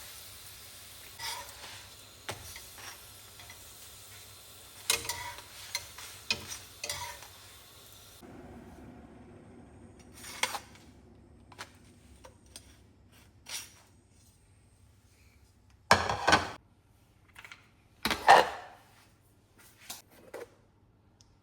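Dishes, pots and cutlery clattering: a scattered string of clinks and knocks, the two loudest near the end. A steady hiss underneath stops abruptly about eight seconds in.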